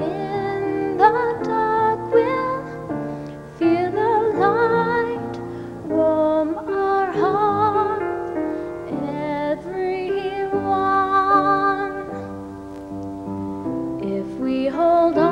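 A slow piano ballad: a piano playing chords under a woman's voice holding long, wavering notes.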